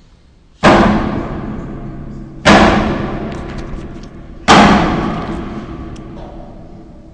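Three loud bangs from machinery in a wood pellet production line, evenly spaced about two seconds apart, each dying away slowly.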